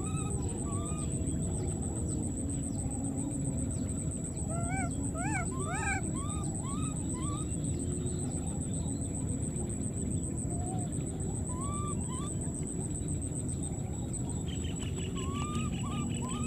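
Baby monkeys giving short rising-and-falling cries one after another, with a quick run of louder cries about five seconds in. Underneath are a steady high-pitched pulsing buzz and a continuous low rumble.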